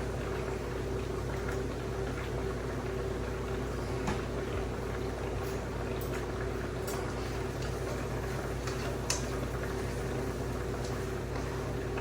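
Steady hum and hiss with a few light, sharp clicks and taps, loudest about four and nine seconds in, from hardware and screws being handled while a metal feeder cage is put together.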